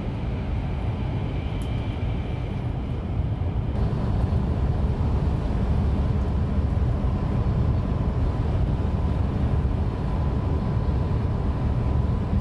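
Hayabusa shinkansen bullet train running at about 314 km/h, heard inside the passenger cabin: a steady low rumble with a faint thin hum above it, a little louder from about four seconds in.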